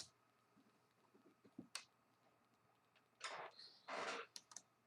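Faint handling of a small screwdriver on laptop bezel screws: a few light clicks and ticks, then two short scraping rasps a little over half a second apart, about three seconds in.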